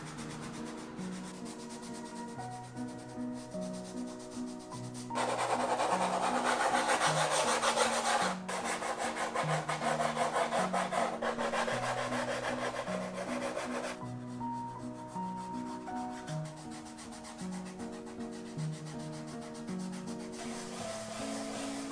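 Soft pastel rubbed and scrubbed against textured pastel paper: a dry, scratchy rubbing that starts about five seconds in and stops about nine seconds later, with a brief break partway. Gentle background music with a slow stepping bass line plays under it throughout.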